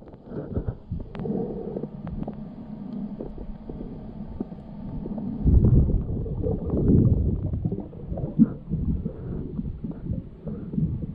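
Muffled underwater sound picked up through a camera housing: low rumbling water movement from the swimming diver, growing louder about halfway through, with scattered small clicks and knocks.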